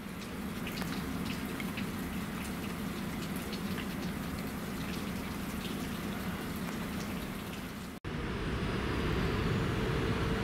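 Steady rain, with many small drops ticking on nearby surfaces over a low background rumble. About eight seconds in it cuts to a louder steady hum.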